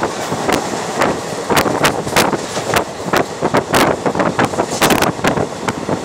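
Passenger train running at speed, heard from an open coach doorway: a steady rush of wind and running noise, with wind buffeting the microphone in frequent sharp, irregular crackles.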